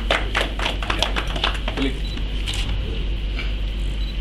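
Scattered hand clapping from a small group, a few claps a second, dying away about two seconds in, over a steady low hum.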